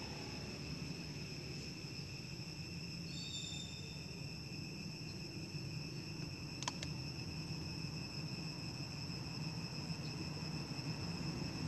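Insects chirring in one steady, unbroken high tone, over a low background rumble. A single sharp click comes about seven seconds in.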